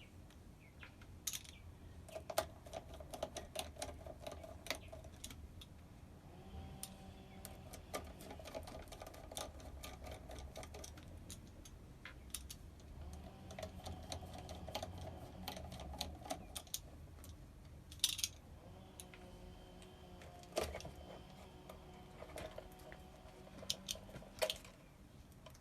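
A small electric motor runs in four spells of a few seconds each, among scattered clicks and light metal taps, as the mill's control box is opened up.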